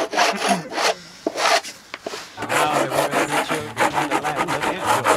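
A bar of surf wax rubbed back and forth across a surfboard's deck, a dry scraping rub in quick strokes. The strokes thin out about a second in and come thick and fast again from about two and a half seconds.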